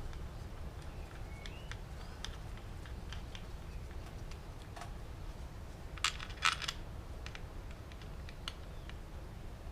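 Light metallic clicks and clinks of tools and timing-chain parts being handled on a VR6 engine, with a short cluster of sharper clinks about six seconds in.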